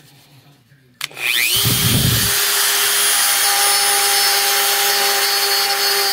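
Dremel rotary tool with a carbide burr switched on about a second in, spinning up quickly to a steady whine as it grinds the edge of a rough cut-out in a plastic snowmobile side panel.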